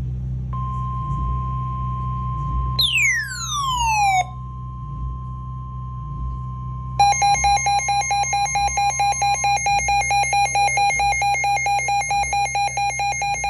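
Emergency alert broadcast tones: a steady high tone, a falling sweep about three seconds in, then from about seven seconds a loud, rapidly pulsing electronic alarm tone.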